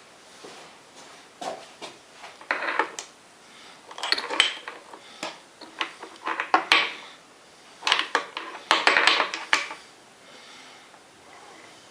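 Metal objects clinking and clattering as they are handled, in irregular bunches of knocks and scrapes.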